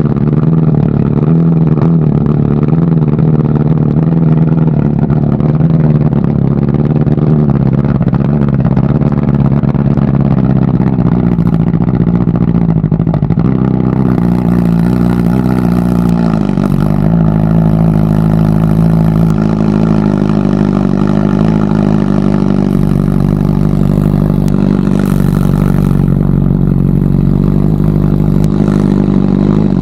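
BMW M1000RR's inline-four running through Akrapovič titanium headers and an SC-Project S1 slip-on with its Euro 5 dB killer still fitted. The revs rise and fall for the first dozen seconds, drop about fifteen seconds in, then settle to a steady idle.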